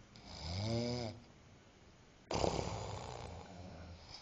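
Loud snoring from a sleeper. A pitched snore rises and falls for about a second. From about two seconds in comes a sudden, harsher, rasping snore that slowly fades.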